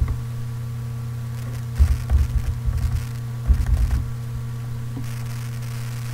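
Steady low electrical hum from the microphone, with two short clusters of soft thumps and clicks about two and three and a half seconds in, from typing on a computer keyboard.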